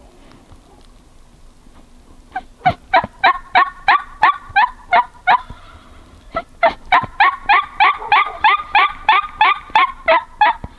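Turkey yelping: two long runs of rapid, evenly spaced yelps, about four a second, with a short break in the middle.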